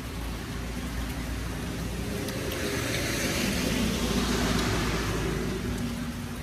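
A vehicle passing on a wet road: a hiss that swells to a peak about four seconds in and then fades, over steady rain.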